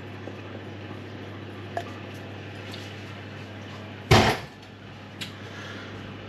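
A single sharp knock about four seconds in, the loudest sound here, with a faint click shortly before and after, as kitchen things are handled and set down. A steady low hum runs underneath.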